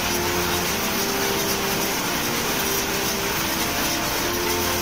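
Salmon processing line running steadily: a constant machinery hum with water rushing through the stainless-steel trough.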